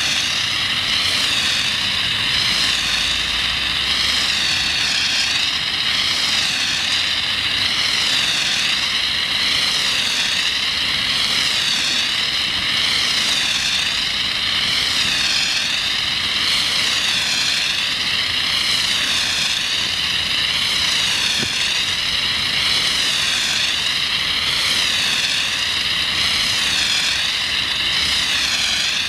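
Foam blasting from the half-inch nozzle of an IntelaGard Merlin 14-gallon portable foam system on a 3/4-inch hose line: a loud, steady rushing hiss that wavers gently in pitch about once a second, the unit discharging without a break.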